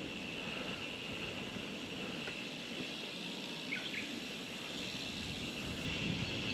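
Outdoor background noise on a rural hillside road: a steady low wash with a thin, steady high tone over it, and a couple of short chirps about four seconds in.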